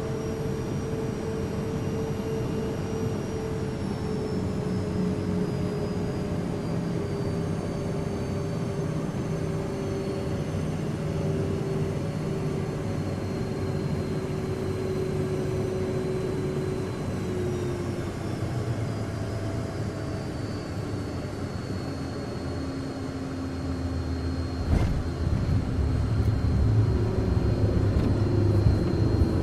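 Learjet cabin interior in flight: steady jet engine and airflow noise with engine whine tones slowly falling in pitch as power comes back for the descent. About 25 seconds in there is a sharp knock, after which a deeper, louder rumble builds.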